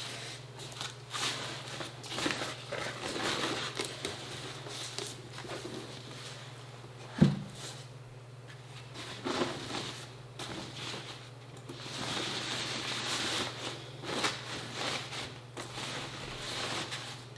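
Thin plastic protective bag crinkling and rustling as it is worked off a curved computer monitor, with one sharp knock about seven seconds in. A steady low hum runs underneath.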